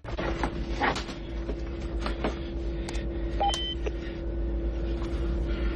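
Steady low drone of an aircraft interior with a constant hum, under scattered clicks of a mobile phone's keys being pressed, and a short electronic beep from the phone about three and a half seconds in.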